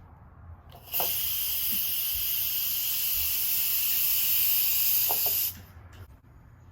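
Pressure cooker whistle: steam blowing out of the weight valve in a loud, steady hiss. It starts suddenly about a second in, holds for about four and a half seconds, then cuts off sharply as the steam release stops.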